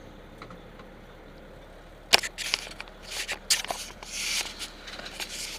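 A run of sharp clicks and knocks starting about two seconds in, with a brief hiss a little past four seconds, like gear or an object being handled.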